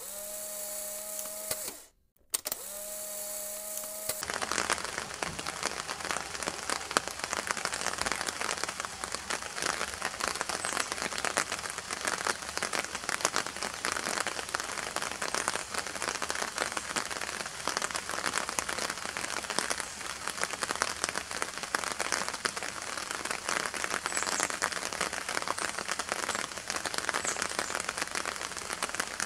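Heavy rain falling steadily, a dense even patter with fine crackle. It follows a short electronic intro tone that drops out briefly about two seconds in and ends about four seconds in.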